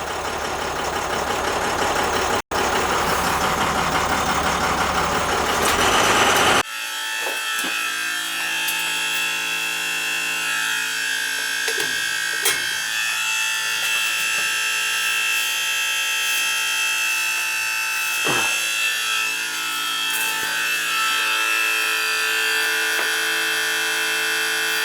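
A vehicle runs for about six seconds, then cuts to a steady high-pitched squeal of several held tones from an old gas boiler's circulator pump. The noise carries through the house and is the sign of a failing circulator.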